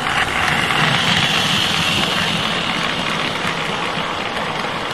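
Model railway train running along the track: the locomotive's small electric motor and wheels making a steady, loud whirring noise as it comes round the curve and passes close by.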